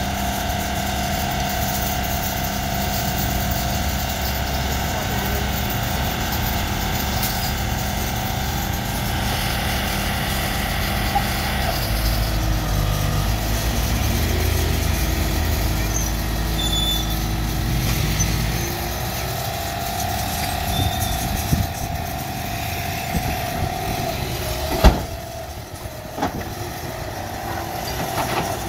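A mini excavator's diesel engine and a dump truck's engine running together. The low engine rumble swells for several seconds in the middle, and a single sharp knock sounds near the end.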